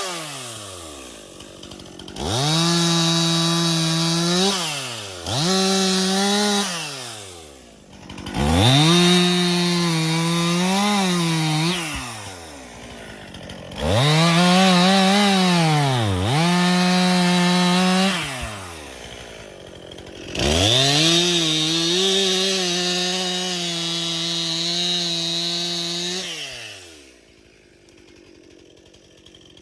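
Stihl MS261C two-stroke chainsaw cutting a dead ash trunk into chunks: the saw revs up to full throttle about five times, its pitch dipping briefly under load in the wood, then drops back toward idle between cuts. It runs much quieter for a couple of seconds near the end before revving again.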